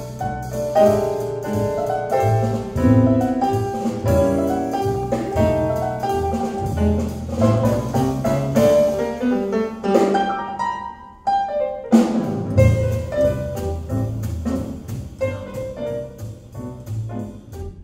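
Recorded music with piano and drums played back through a high-end stereo system's YG Acoustics Carmel 2 floor-standing speakers, heard in the room. The music dips briefly about eleven seconds in, then carries on.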